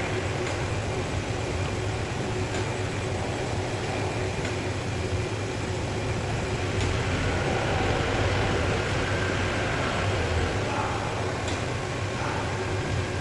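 Five-axis CNC machine with a point-to-point table running: a steady mechanical hum with a constant tone and a few faint ticks.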